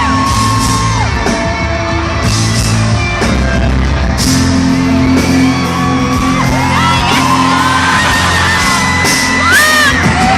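Live pop-rock band playing in a large arena: drums with cymbal strikes, a steady bass part, and a sung melody with long held notes. Shouts and whoops from the crowd come over the music.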